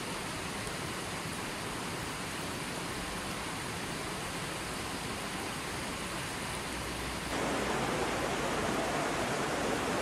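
Steady rush of a shallow mountain river flowing over and around rocks. A little over seven seconds in, the sound switches abruptly to a louder, fuller rush of water.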